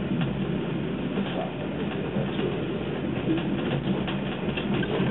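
Passenger train running, heard from inside the carriage: a steady rumble with faint scattered clicks and rattles.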